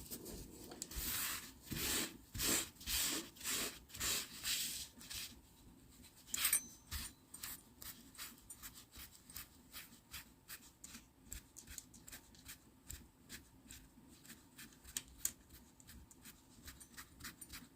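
Rhythmic rubbing and scraping by hand on a small object, about two strokes a second. The strokes are loudest for the first five seconds, with a sharp click a little after six seconds, then go on as fainter, quicker scratchy strokes.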